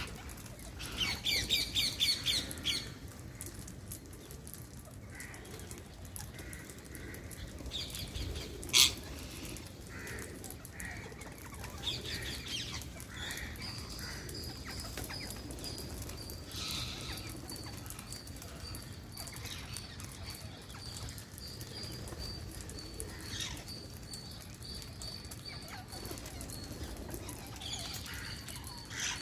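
Wild parrots calling: a quick run of shrill, repeated screeches about a second in, one loud sharp call about nine seconds in, and scattered calls after that. From about halfway a high, thin, pulsing note carries on steadily.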